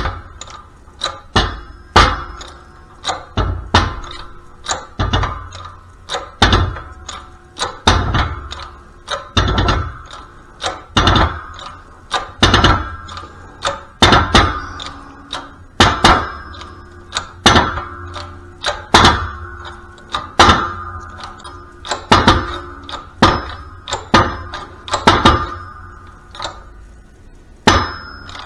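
Hand-operated arbor press being worked stroke after stroke, with a metallic clunk a little more than once a second and a brief ringing after each one, as the ram presses a needle bearing into a Harley five-speed transmission drive gear.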